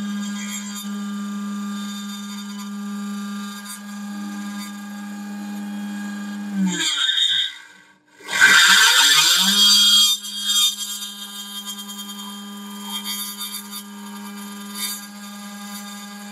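A 3018 CNC router's spindle motor runs at a steady high pitch while the end mill cuts aluminum. About seven seconds in it cuts out and spins down, then spins back up with a loud harsh burst of cutting noise before settling to its steady pitch again. The cut-out is the intermittent spindle power that the owner traced to a bad wire.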